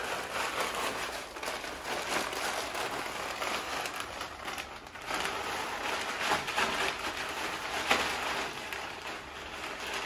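Potting soil pouring out of a plastic bag into a large plastic planter, the bag crinkling as it is tipped and shaken: a continuous rustling hiss with a sharper crackle about eight seconds in.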